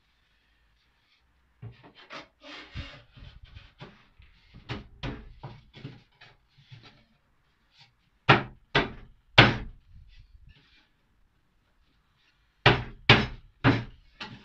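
Plywood tool caddy parts being knocked together by hand in a dry fit: light knocks and rubbing as the pieces are pushed into place, then three sharp fist strikes seating the shelf onto the uprights just past the middle and four more near the end.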